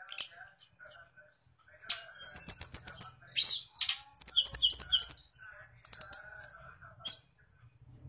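A caged sulingan gunung songbird singing: several bursts of rapid, high-pitched trilled notes with short pauses between them.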